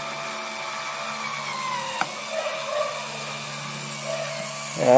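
Power drill driving a screw through a tablet into a wooden deck. The motor whines steadily, then slows as the screw bites. A sharp click comes about two seconds in, after which the drill runs unevenly.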